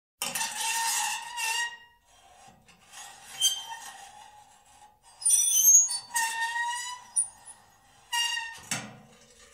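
Metal door creaking, in four drawn-out squeals that waver in pitch, with a short low thump near the end.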